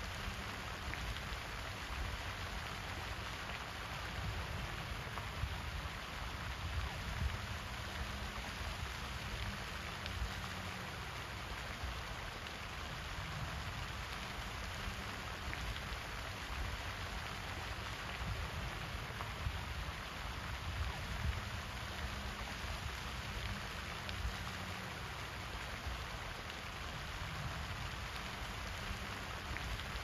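Pond fountain jet, its spray falling back onto the water as a steady splashing hiss, with a low fluctuating rumble underneath.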